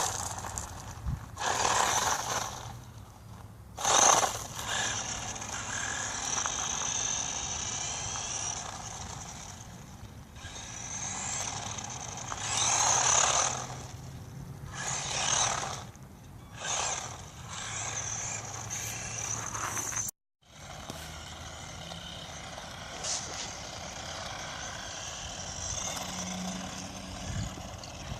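Electric motor of a 1:12 remote-control off-road truck whining as it is driven in repeated surges, louder and quieter as the throttle is worked, with a brief dropout about two-thirds of the way through.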